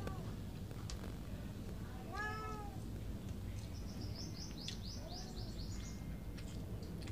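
An animal call: one drawn-out, pitched cry about two seconds in, then a quick run of high chirps, over a steady low rumble.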